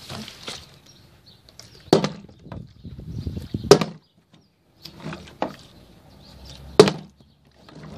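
A part-filled plastic water bottle knocking down onto wooden decking, with soft handling noise between: three sharp knocks, about two seconds in, just before the middle and the loudest near the end, and a lighter one between.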